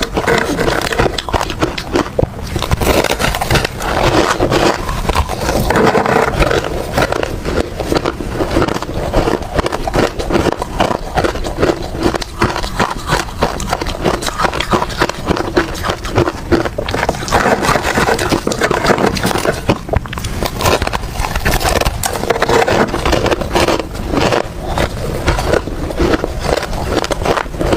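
Ice being bitten and chewed close to the microphone: a dense, continuous run of sharp cracks and crunches.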